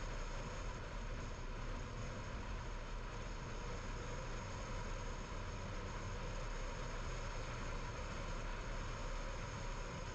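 Steady road noise of a car being driven: tyre and wind noise with a low rumble, unchanging throughout.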